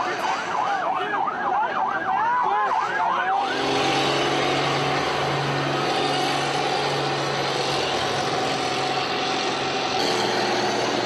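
An emergency-vehicle siren in fast yelp mode, about four rising-and-falling sweeps a second, which stops abruptly about three and a half seconds in. After that comes a steady loud street din with a low, even engine hum under it.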